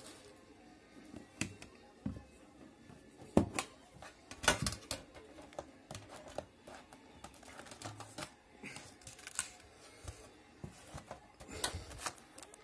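Metal trading-card tin being handled and opened: scattered clicks, taps and knocks of fingers and the lid on the tin, loudest twice, about three and a half and four and a half seconds in.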